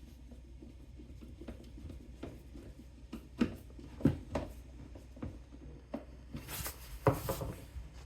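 A few scattered knocks and clicks of objects being handled, then a brief rustle with a sharper knock near the end, over a low steady hum.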